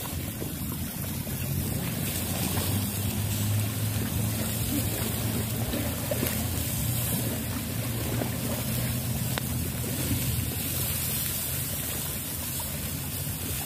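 An engine running steadily with an even hum, under a wash of noise.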